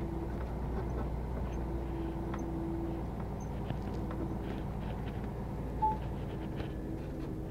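Lorry's diesel engine running steadily at low speed, a low rumble heard from inside the cab, with a faint hum that comes and goes and light rattles. A short high beep sounds about six seconds in.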